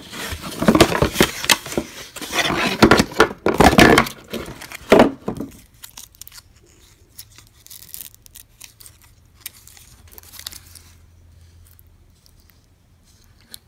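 Cardboard box and plastic wrapping rustling and crinkling as a battery pack is pulled out, dense and loud for about the first five seconds. After that only faint, scattered handling clicks as the plastic pack is turned in the fingers.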